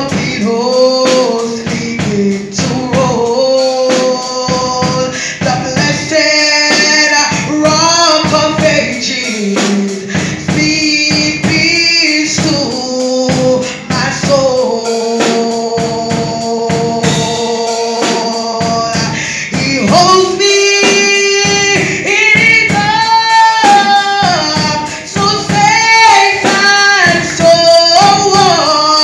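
Gospel worship song: a woman's voice leads at the microphone, with other voices singing along over a steady percussion beat.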